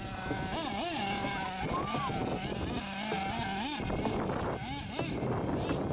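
Nitro RC car's small two-stroke glow engine (SH 28, 4.7 cc) revving up and down repeatedly, its pitch rising and falling in quick swoops as the throttle is worked.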